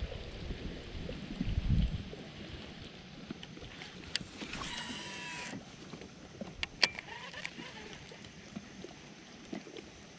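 Wind buffeting the microphone for the first two seconds, then light clicks and knocks of handling on a kayak, with a brief whirring sound about four to five seconds in.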